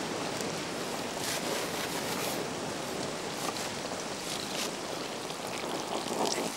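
Corn-fed chicken sizzling in a grill pan, a steady hiss with scattered crackles, while a knife slices through white cabbage on a cutting board.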